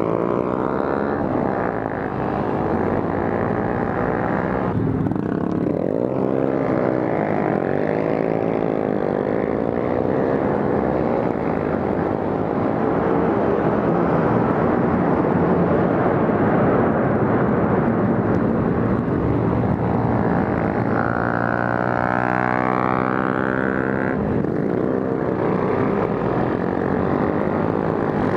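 Honda Grom's small single-cylinder four-stroke engine running under way, its pitch rising and falling repeatedly with the throttle and gear changes. Late on, a second engine's rising tone overlaps it for a few seconds.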